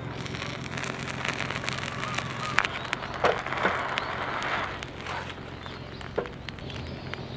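Small wood fire just lit in a portable fire pit, crackling with scattered sharp pops over a steady low background.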